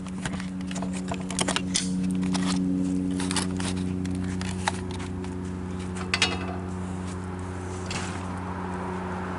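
Scattered light metallic clicks and clinks, thickest in the first few seconds, from steel tire-stand parts and tools being handled, over a steady low hum.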